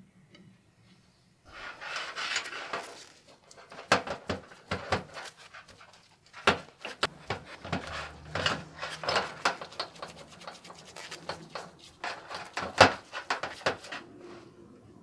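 Small steel vise parts clicking and knocking against a stainless steel work surface and against each other, with wet rubbing and sloshing between the knocks, as gloved hands work them in a puddle of paint remover. A noisy wet stretch begins about a second and a half in, then the irregular metal knocks go on until shortly before the end.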